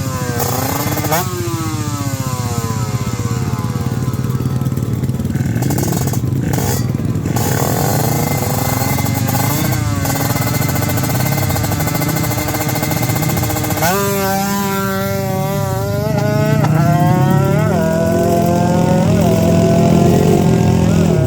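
Racing motorcycle engines screaming at high revs down a drag strip, the pitch climbing and dropping back sharply at each gear change. A louder run starts about two-thirds of the way in, rising through four or five quick shifts.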